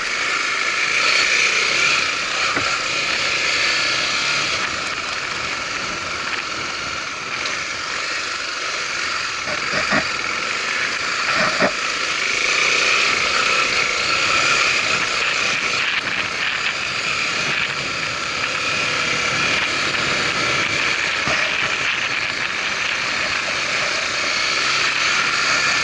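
Honda Tornado 250's single-cylinder engine running steadily under way, with two sharp knocks partway through.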